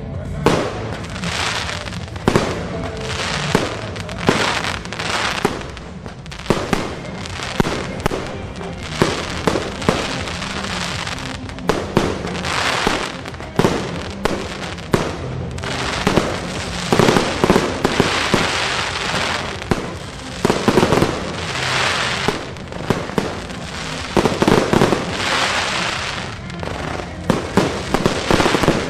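Fireworks display: aerial shells bursting one after another in a quick, uneven run, heavier and louder in the second half. Music plays underneath.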